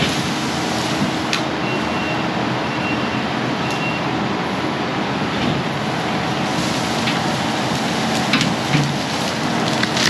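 Kubota compact track loader's diesel engine running steadily under load as it pushes through brush, with several sharp snaps of breaking branches.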